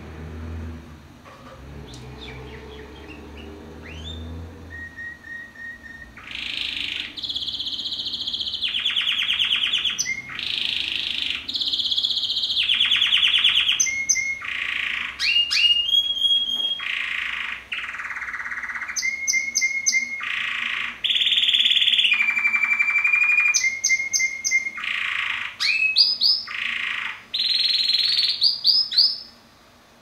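Male canary singing a long song of rapid trills, held whistled notes and rising sweeps, starting about five seconds in and breaking off just before the end. A low rumble sits under the first few seconds.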